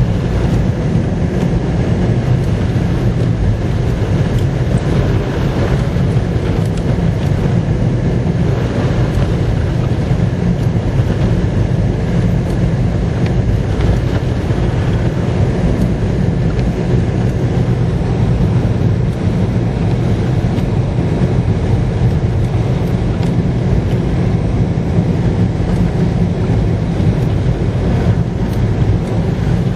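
Storm wind in a snowstorm blowing over the microphone, a steady, heavy low rumble with no let-up.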